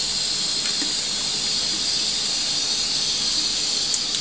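Steady hiss of a gas stove burner heating oil in an open aluminium pressure cooker.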